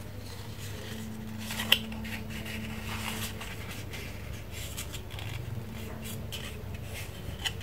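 Hands handling and folding a paper circle into a cone: faint paper rustles and a sharp click a little under two seconds in, with a smaller click near the end, over a steady low hum.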